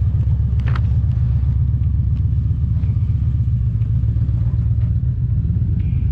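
Triumph Tiger 1050's three-cylinder engine idling steadily, a low even rumble.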